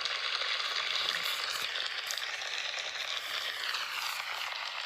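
Canned sitcom applause: a dense, steady crackle of many hands clapping, easing off slightly toward the end.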